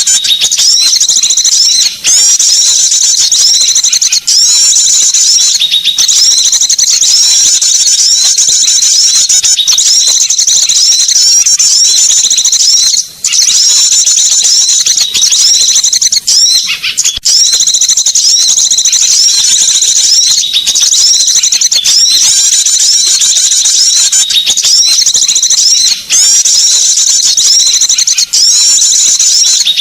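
Small songbirds' lure call from a bird-lure (pikat) recording: a loud, dense, unbroken stream of high-pitched chirps and trills, broken only by a few momentary gaps.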